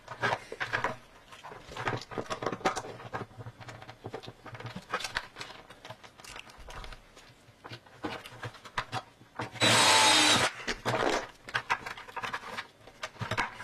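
Knocks, clicks and rubbing from hands, a clamp and a wooden jig being worked against a plastic bucket. About ten seconds in, a cordless drill runs for about a second.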